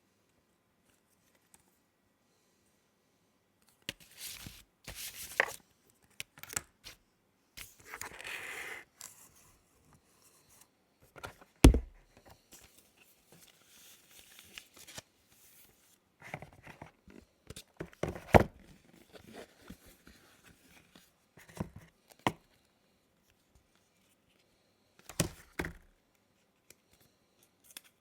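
Packaging being opened by hand: intermittent tearing and rustling, broken by quiet pauses, with two sharp knocks about 12 and 18 seconds in.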